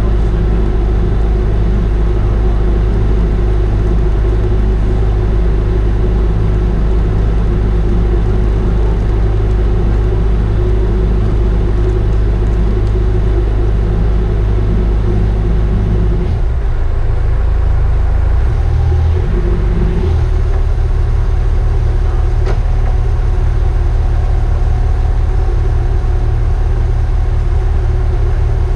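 The Leopard 45 catamaran's diesel engines running steadily at low speed. About halfway through, the engine note shifts for a few seconds and then settles again as the throttles are moved toward astern.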